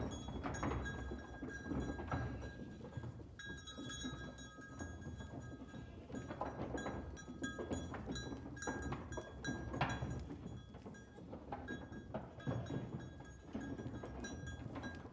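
Instrumental background music, with short clicks and taps scattered through it.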